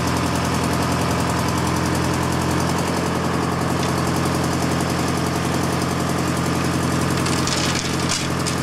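Engine of a military rough-terrain crane running steadily at idle, holding the hook while chains are rigged for a lift.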